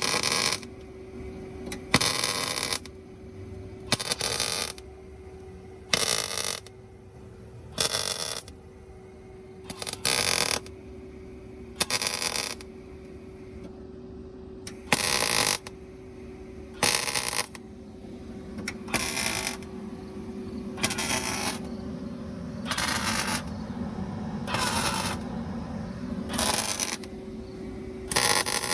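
Tack welding a steel patch into a rusted-out strut tower: about fourteen short bursts of welding arc, each under a second, roughly every two seconds, over a steady hum.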